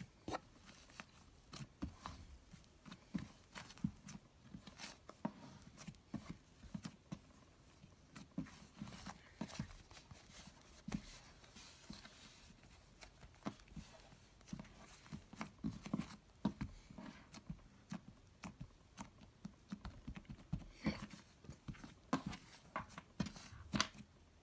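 Thick, clay-like slime squished, poked and pulled by hand, giving many faint, irregular sticky pops, clicks and squelches.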